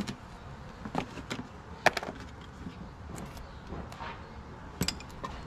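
A plastic motor-oil jug being handled and opened: a few scattered sharp clicks and light knocks, the loudest about two seconds in and a quick pair near the end.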